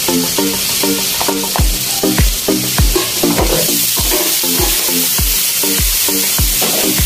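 Electronic background music with a steady beat, its deep kick drum coming in about a second and a half in, over the steady hiss of shrimp frying in a wok.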